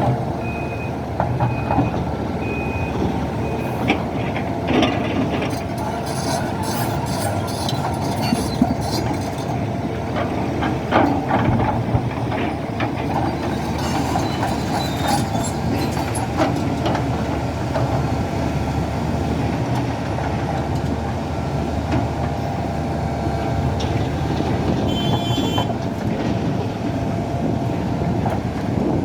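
SANY hydraulic excavator's diesel engine running steadily under load, with scattered knocks and clanks. Warning beeps sound during the first few seconds and again near the end.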